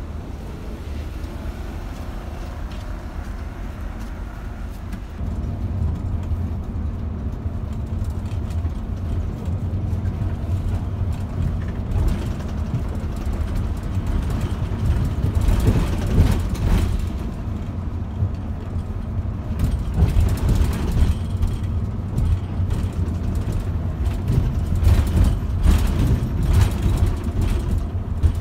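Cabin noise of a moving intercity bus: the engine's low drone and road rumble, growing louder over the first several seconds, with short knocks and rattles scattered through the second half.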